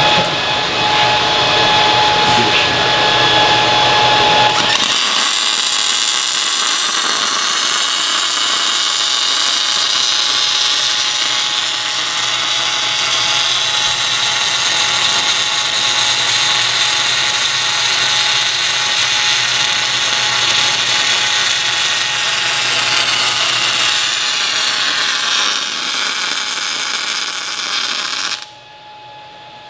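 MIG welding arc from an ESAB Rebel EMP 235ic running .035 wire fast and hot, at about 29 volts and 220 amps. It is a spray arc right on the edge of a buried short arc, giving a steady dense hiss that cuts off suddenly near the end when the arc is broken.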